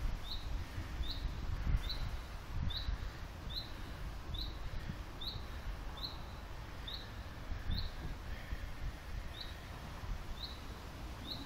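A bird repeating a single short, high chirp about once a second, over a low rumble.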